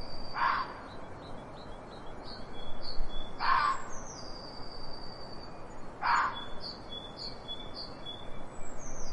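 Outdoor birdsong: a songbird's series of short high chirps and a long high note over steady background noise, with three louder harsh calls about three seconds apart.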